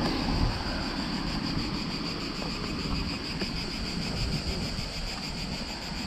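Cicadas buzzing in a steady, high-pitched drone with a fast, even pulse, over a low rumble of wind on the microphone.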